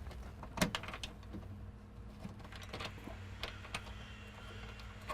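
Scattered light clicks and taps as an ignition switch's bezel and retaining nut are fitted to the front of the dash and threaded on by hand, the loudest about half a second in, over a faint steady hum.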